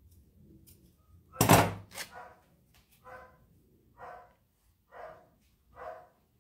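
A dog barking: one loud bark about a second and a half in, then a string of quieter barks about one a second.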